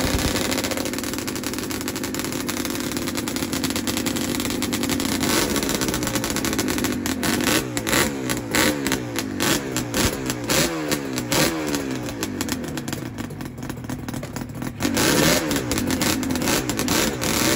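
Motorcycle engine running: a steady note for the first few seconds, then revved up and down in quick repeated blips with crackling. It drops back briefly near the end before revving again.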